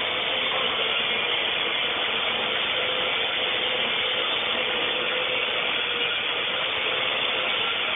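Parrot AR.Drone quadcopter hovering, its four geared electric motors and propellers giving a steady whirring buzz with one held pitch.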